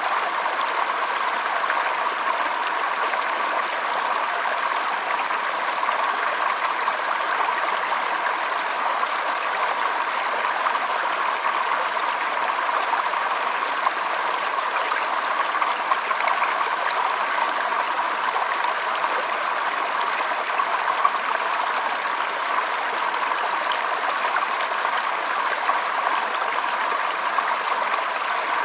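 Shallow stream flowing over stones, a steady trickling and babbling of water.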